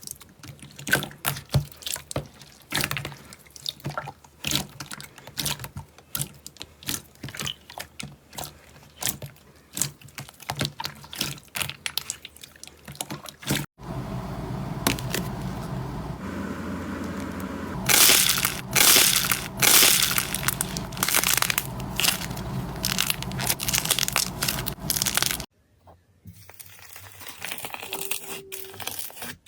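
Slime being pressed and squeezed by hand at close range, giving rapid, irregular crackling and popping. The sound changes character twice as the clips cut, loudest in a burst of crackles in the middle section.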